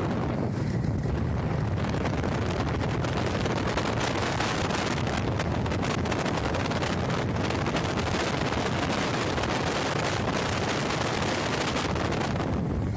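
Heavy wind rush buffeting the microphone on a moving motorcycle, with engine and road noise mixed underneath, steady throughout.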